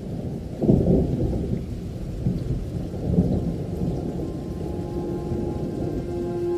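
Thunderstorm ambience of rain and thunder: a deep, continuous rumble that swells about a second in and again around three seconds in. A low held musical tone comes in over it past the middle.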